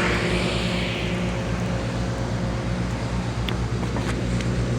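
Steady low diesel-engine hum beside a slowly passing freight train, with a couple of faint ticks near the end. The hum is taken for a refrigerator car's cooling unit running, though it may be another train approaching.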